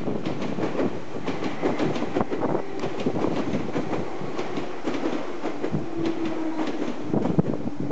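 An electric train running over the level crossing, its wheels clattering rapidly over the rail joints, with a low steady hum in the middle and again near the end.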